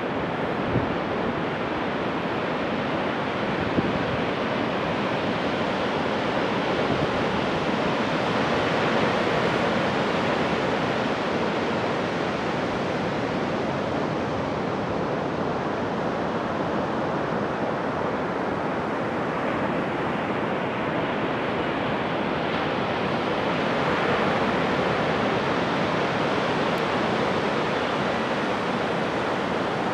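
Pacific Ocean surf on a beach: a steady, continuous wash of waves, swelling a little about a third of the way in and again later on.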